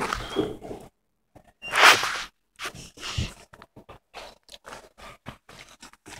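Handling noise on a phone's microphone as it is moved and tumbled about: irregular rubbing and rustling with scattered small knocks and clicks, a louder rub about two seconds in, and a brief dropout about a second in.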